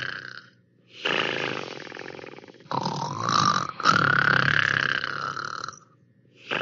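Snoring: a run of loud, rasping snores, each a second or two long, with short pauses between them.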